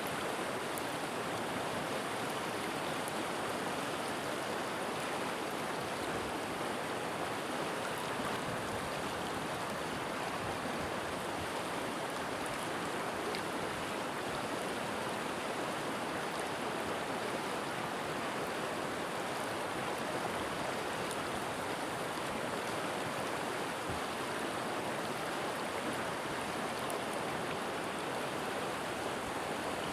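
River water flowing and rushing, a steady even noise with no breaks.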